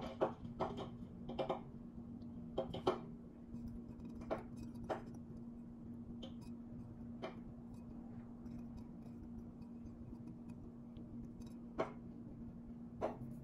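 Light scattered clinks and taps as a painted glass vase is handled, about ten of them, the busiest in the first three seconds, over a steady low hum.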